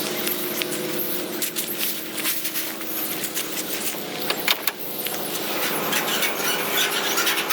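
An engine running steadily, with many scattered metallic clinks and knocks over it.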